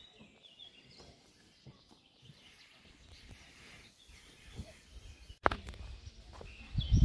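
Songbirds chirping faintly in spring woodland, with scattered soft low knocks. About five seconds in, the sound cuts to a louder low rumble with knocks.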